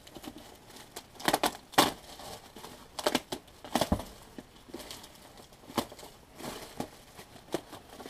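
Bubble wrap and plastic sheeting crinkling and crackling in irregular bursts as they are pulled about inside a cardboard box, with a dull thump about four seconds in.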